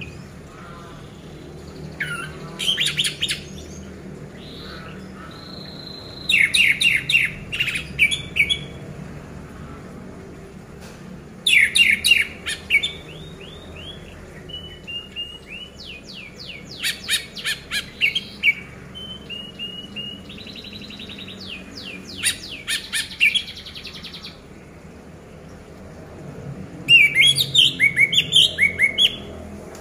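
Orange-headed thrush (anis merah) singing: loud phrases of fast, sharp repeated notes about every five seconds, with softer whistled notes between them.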